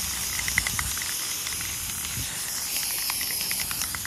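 Aerosol spray-paint can hissing as it sprays paint onto an engine cover, with a scatter of light ticks over the steady hiss.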